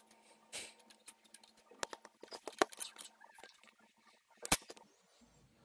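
Close handling noise of small makeup items, a lipstick among them, held against the phone's microphone: rustling with a few sharp clicks, the loudest about four and a half seconds in.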